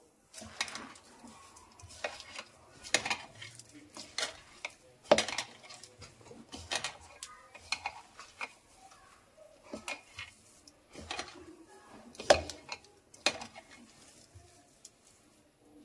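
A hand kneading a crumbly vegetable seekh kebab mixture in a ceramic plate: irregular sharp clinks about once or twice a second as the hand and bangles knock against the plate, with soft squishing between. The clinks die away near the end.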